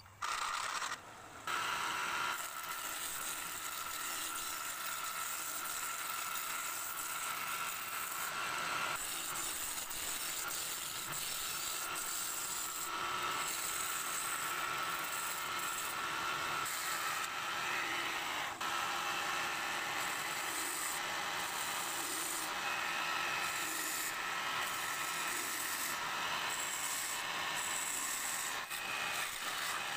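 Wood lathe started up and running, with a hand turning tool cutting into a spinning wooden blank to rough it round: a steady scraping, hissing cut over a constant tone from the machine. It starts abruptly at the very beginning and dips briefly about a second in.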